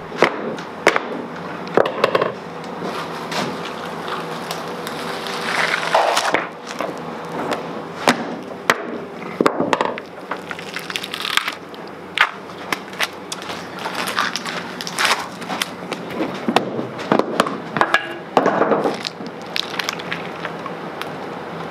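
A rubber mallet knocks the mould walls off a cured epoxy resin pour, with irregular sharp knocks and cracks as the epoxy and tape edges break free. A few longer ripping noises come as the taped mould sides are pulled away.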